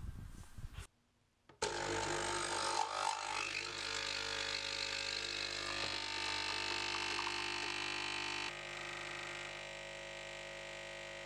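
Capsule coffee machine running as it pours coffee into a mug: a steady mechanical pump hum that starts suddenly a second and a half in and drops a step in level about three-quarters of the way through.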